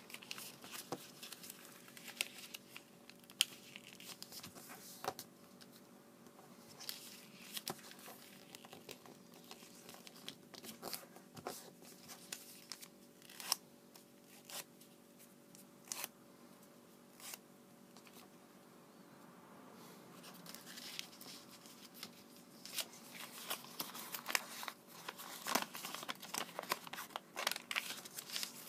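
Origami paper being folded and creased by hand: scattered crisp rustles and sharp snaps of creases, growing into a denser stretch of crinkling toward the end.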